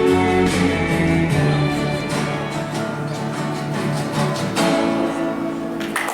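Instrumental close of a song: plucked acoustic guitar over accompaniment, ending on a final chord struck about four and a half seconds in and held.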